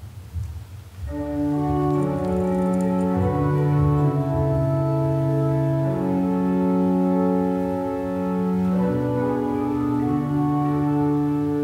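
Organ playing slow, sustained chords that change every second or two, starting about a second in.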